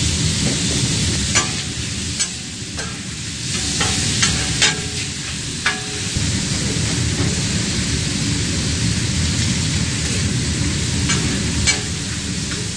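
Pork intestines sizzling on a flat-top griddle. A metal spatula stirs and chops them, clacking and scraping against the griddle now and then.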